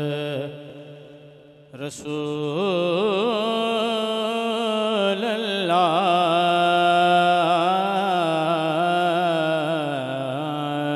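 A man's voice chanting a naat through a microphone, drawing out a line of salawat in long, wavering, ornamented notes. The voice fades away about half a second in and returns strongly just before two seconds, then holds the melody to the end, over a steady low hum.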